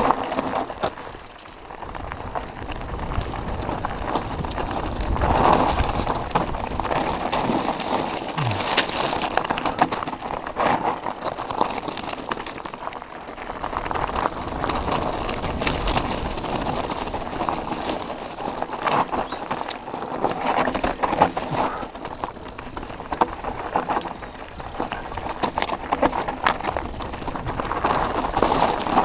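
Mountain bike descending a rocky, loose-stone singletrack: tyres crunching over stones while the bike rattles and clatters with constant small knocks over the bumps.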